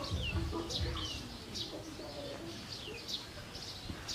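Baby macaque giving a run of short, high squeaks that fall in pitch, two or three a second, with soft towel rustling near the start.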